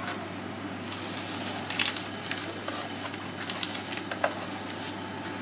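Stall background noise: a steady low hum with a few short clicks and clinks, the sharpest about four seconds in.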